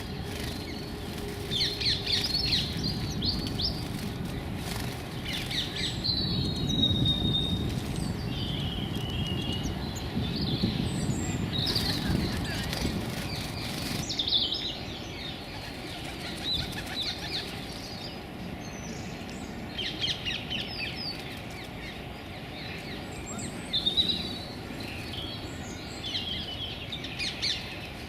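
Blue tits and great tits calling in many short, high chirps and a few thin whistled notes, with wing flutters as they come and go at close range. A low, steady background rumble runs underneath.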